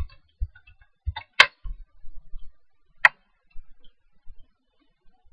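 Two sharp clicks of a computer mouse about a second and a half apart, the first the louder, with a few soft low knocks from handling the mouse in the first couple of seconds.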